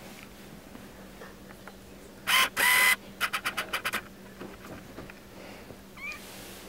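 Two loud hissy bursts, each carrying a steady beep-like tone, then a quick run of about eight sharp clicks, roughly nine a second. Near the end comes a brief faint rising squeak.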